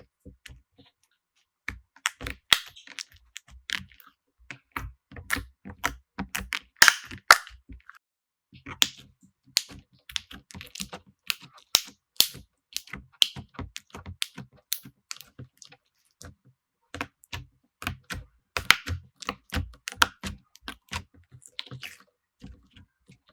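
Slime being pressed and poked close to the microphone, giving rapid, irregular clicks and small pops, with two brief pauses.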